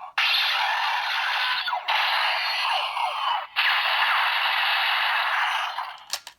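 Built-in speaker of a DX Break Gunner toy playing the electronic sound effect for the Deco Traveler Shift Car. It is a tinny, noisy effect with sliding swooshes running through it. It breaks off briefly twice, about two seconds in and again about three and a half seconds in, and dies away shortly before the end.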